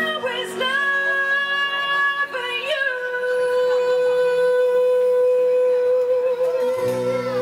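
A singer's voice holding sustained notes over backing music: a high held phrase, then one long note with a slight vibrato for about four seconds, as the low backing music comes back in near the end.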